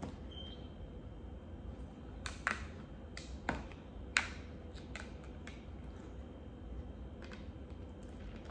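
Slime being worked by hand and with a plastic stick in a plastic bowl: scattered sharp clicks and taps, the louder ones coming between about two and four and a half seconds in.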